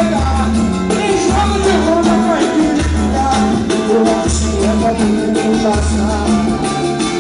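Live pagode band playing samba, with a deep low beat pulsing about every second and a half under a dense mix of melody and voices.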